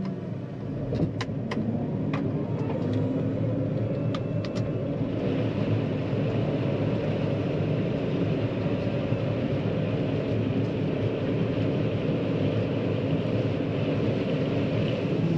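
John Deere 9500 combine running steadily while it is driven up a bank in four-wheel drive, with a few sharp clicks in the first seconds and a higher hiss joining about five seconds in.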